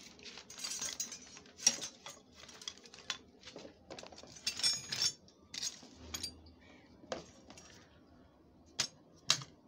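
Metal hand tools and scrap, spanners and wrenches among them, clinking and clattering as they are shifted by hand while rummaging through a pile. Irregular sharp clinks, with the loudest about two seconds in and again near the end.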